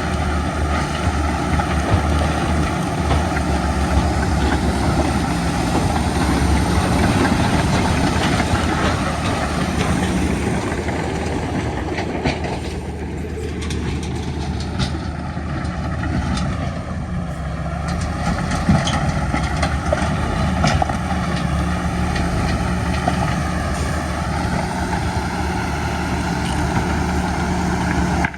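Diesel engines of heavy earthmoving machinery (bulldozer and dump truck) running steadily, with scattered clanks and rattles and a brief shift in engine pitch about halfway through.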